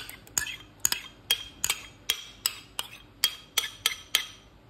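A spoon tapping and clinking against the glass blender jug as yogurt is scraped off it, about three light clinks a second, stopping shortly before the end.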